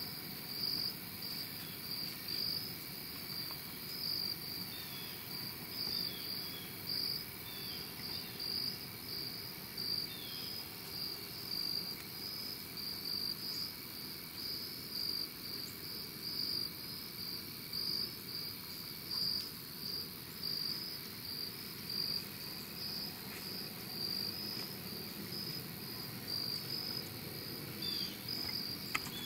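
Crickets chirping in a steady, pulsing high-pitched chorus, with a few short faint bird chirps.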